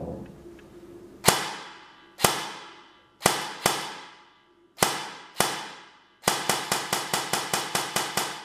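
Specna Arms SA-B03 airsoft electric rifle, suppressor removed, firing six single shots on semi-auto at uneven gaps, then a full-auto burst of about a dozen shots in under two seconds. Each shot is a sharp crack with a short echo of the room after it.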